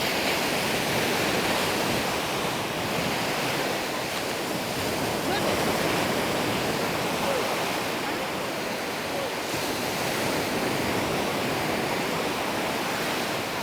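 Sea waves washing onto a sandy beach: a steady, continuous rush of surf.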